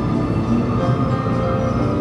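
The Kyushu Shinkansen's standard onboard chime, a short melody of held notes, plays over the steady low rumble of the train running.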